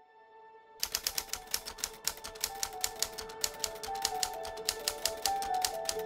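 Rapid typewriter keystroke clicks, several a second, starting about a second in as the text of a quote is typed out on screen, over soft background music with slow held notes.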